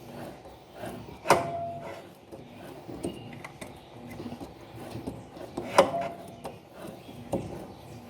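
Clatter of hands handling washing-machine parts during assembly: a few sharp knocks, the loudest about a second in and again near six seconds, the first ringing briefly, with quieter handling noise in between.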